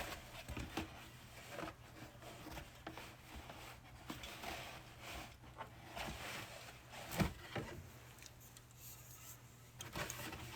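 Aluminium soda cans being set down and slid onto a refrigerator shelf: scattered light knocks and scrapes, with one sharper knock about seven seconds in.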